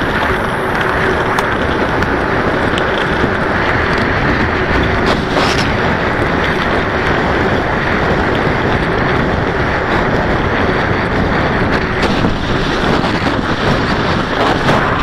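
Wind rushing over a moving camera's microphone at riding speed on a dirt road: a loud, steady roar with rumble from the ground underneath.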